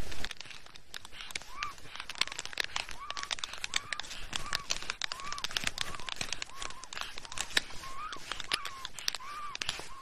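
Black storks mating on their twig nest: a dense run of sharp clicks and rustling from the birds' feet and wings on the sticks, with a short arched bird call repeated about once a second.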